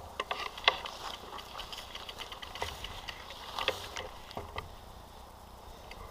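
Faint, scattered clicks and light rattles from a mountain bike at a standstill, picked up through its handlebar-mounted action camera.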